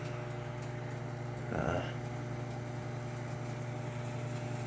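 Microwave oven running with a steady hum while heating food, with a brief louder sound about a second and a half in.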